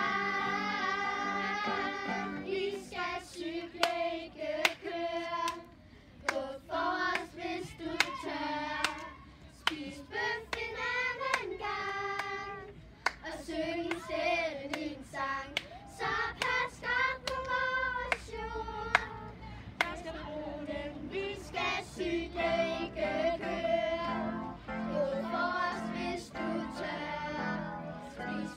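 A group of young girls singing a song together, with sharp percussive hits recurring through it.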